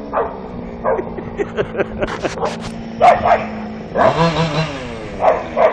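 Staffordshire bull terrier barking and yipping excitedly in short, falling calls, with a quick run of barks about four seconds in. Under the barks there is a steady low hum with a scatter of sharp clicks, which stops about four seconds in.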